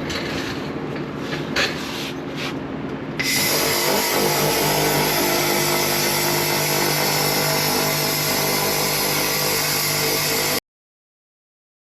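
Laser rust cleaner working on the rusted sheet steel: a quieter hum with brief scratchy hisses, then, about three seconds in, a much louder steady hiss and hum that starts abruptly. The sound cuts off to dead silence near the end.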